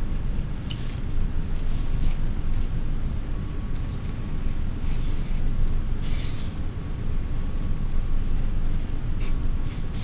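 A steady low rumble, with a few short, faint scratches of a felt-tip marker drawing on paper.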